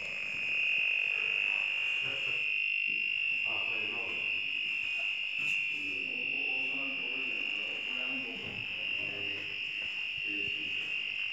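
A steady, unbroken high-pitched tone, with faint voices underneath.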